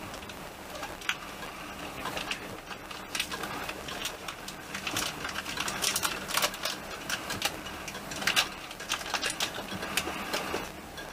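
Irregular sharp clicks and rattles over a steady running hum, inside a moving passenger train carriage.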